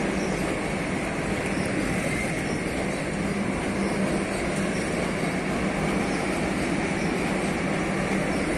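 An Indian Railways passenger train's coaches rolling steadily past close by, a continuous rumble of wheels and running gear with no change in pace.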